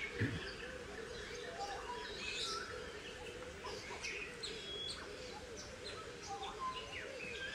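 Many small birds chirping and whistling in short, scattered calls, some sliding in pitch, over a steady low background.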